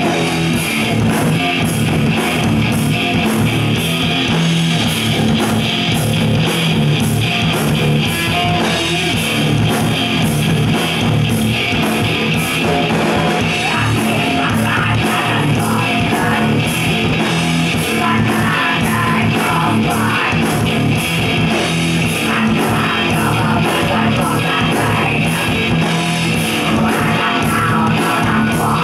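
Live rock band playing loud: distorted electric guitar and a drum kit keeping a steady driving beat, with a vocalist singing into a microphone.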